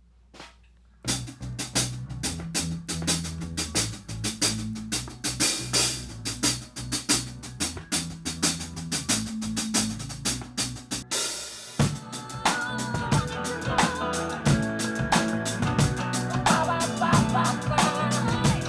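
A band playing in the studio: a drum kit with snare, kick and cymbals drives a steady groove over a bass line, starting about a second in after a few faint clicks. About twelve seconds in the arrangement changes and more pitched instruments join in over the drums.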